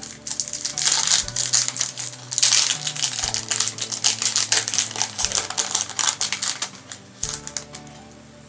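Yu-Gi-Oh trading cards being handled and flipped through one after another: a fast run of crisp clicks and rustles that thins out near the end. Background music with a steady bass line plays underneath.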